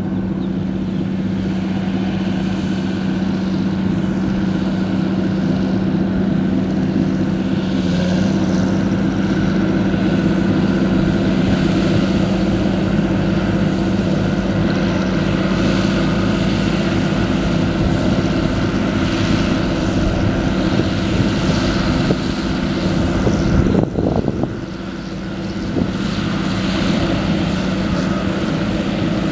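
John Deere tractor pulling a Bednar MZ 6000 trailed mulcher through pasture grass. The engine and the spinning mulcher rotors make a steady, even drone, with a brief drop in level a little past three-quarters of the way through.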